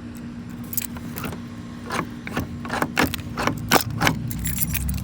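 A ring of keys jangling and clicking in hand, a run of irregular sharp clicks, as the locked truck door is being worked open.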